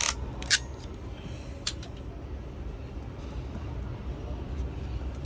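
Sharp clicks of a network cable crimping tool and RJ45 plug being handled and squeezed: a loud click about half a second in and two lighter ones just under two seconds in. A steady low rumble runs underneath.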